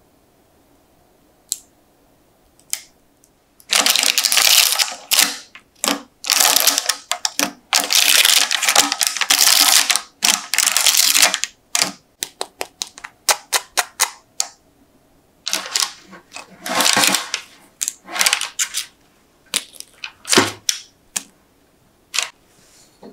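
Crisp baked banana chips being peeled off parchment baking paper: crackling paper rustles and quick sharp clicks as the dry chips come free and are piled together. It starts about four seconds in and comes in runs, with a stretch of separate clicks in the middle.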